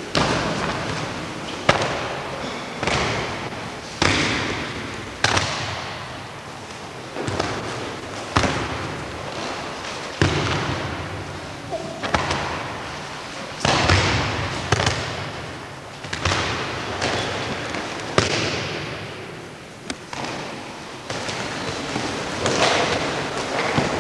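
Bodies hitting the mats in aikido breakfalls as partners are thrown: repeated sharp thuds and slaps, roughly one every second or two, each trailing off into the hall's echo.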